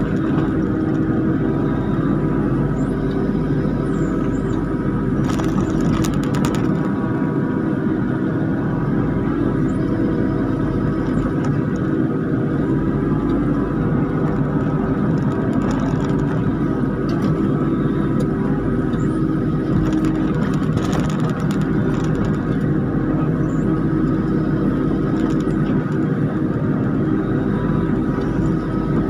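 Kubota KX91-3 mini excavator's diesel engine running steadily under load as it works a log grapple, heard from the operator's seat, with a few brief knocks from the grapple and logs.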